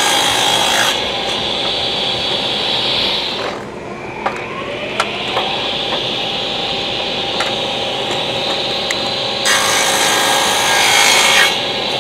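Shopsmith table saw running and its blade cutting through a wooden board to make 45-degree miter cuts. The cutting is loudest and brightest at the start, ending about a second in, and again near the end, with the saw running on between.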